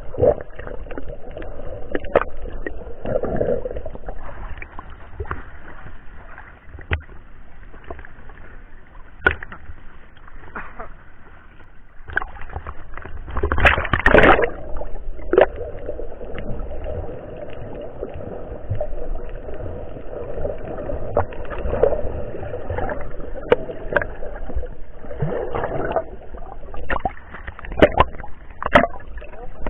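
Muffled water sloshing and gurgling picked up by an action camera held underwater while snorkeling. Scattered sharp clicks run through it, with a louder splashing burst about halfway through and more splashing near the end.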